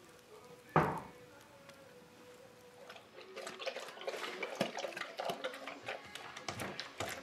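A cat crunching dry kibble from a metal bowl: dense, irregular crackling and clicking that starts about three seconds in. Before it, one brief loud thud about a second in over a faint steady hum.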